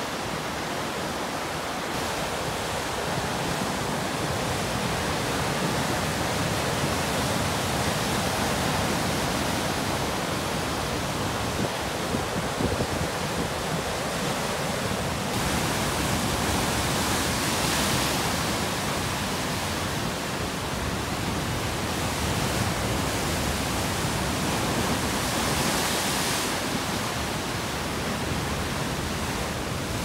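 Storm waves breaking on Lake Superior's shore in strong wind: a steady rushing noise of surf and wind, which turns brighter and hissier about halfway through.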